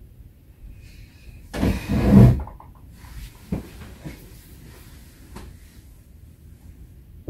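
Household handling noises: a loud scraping rush lasting under a second about a second and a half in, then a few short, light knocks and clicks.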